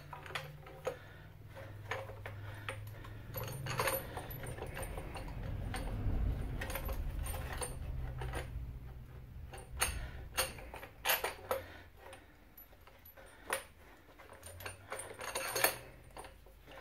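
Irregular metal clinks and clicks as threaded-rod coil spring compressor hooks are fitted and shifted on the coil spring of a front strut. A low rumble runs under them for several seconds in the middle.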